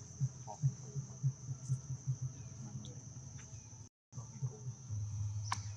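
Steady high-pitched drone of insects in the surrounding vegetation, over low dull thumps repeating two or three times a second. The sound cuts out briefly about four seconds in.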